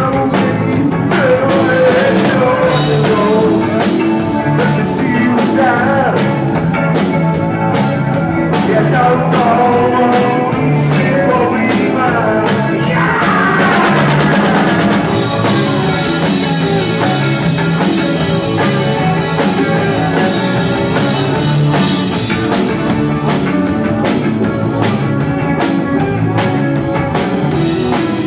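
A live rock band playing: a drum kit keeping a steady beat under bass and electric guitar, with a bending melody line carried over the top.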